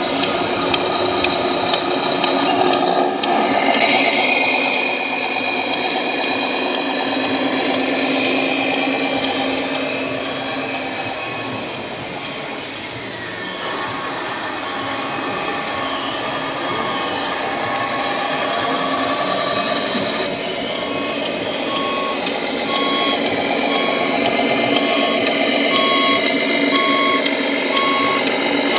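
Radio-controlled scale trucks' electronic sound modules running, with a dense mix of simulated diesel engine tones. A truck's reversing beeper beeps steadily about once a second, faintly near the middle and plainly in the last third.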